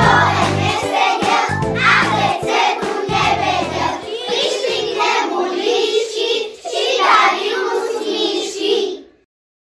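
A group of young children singing a song together, with a backing instrument under the first four seconds or so. The song ends and the sound cuts off about nine seconds in.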